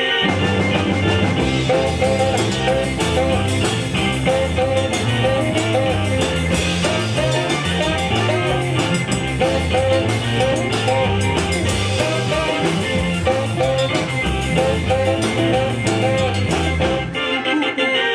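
Live band playing an up-tempo instrumental: drum kit keeping a steady beat under electric guitars, a moving bass line and a saxophone melody.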